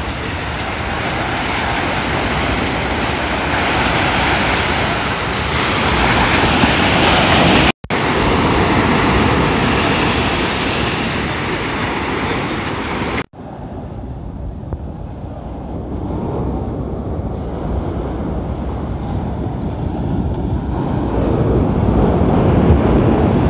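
Sea surf breaking and washing up a sandy beach, with wind buffeting the microphone. After a sudden cut about halfway through, the sound turns to a duller, lower wind rumble with surf further off.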